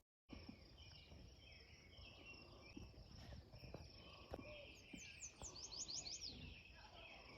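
Near-silent outdoor ambience with faint small birds calling, including a quick run of high chirps about five seconds in.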